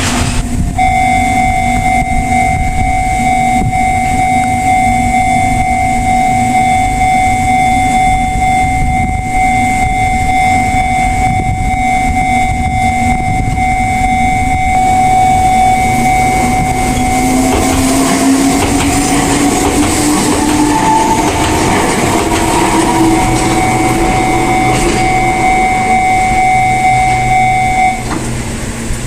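Railway level-crossing warning alarm sounding steadily from about a second in until shortly before the end. About halfway through an electric train passes, with a rising whine.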